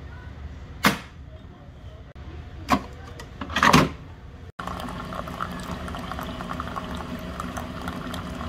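Keurig single-serve coffee maker: a few sharp clicks as the machine is handled and its buttons pressed, then from about halfway a steady pump hum as coffee pours into a ceramic mug.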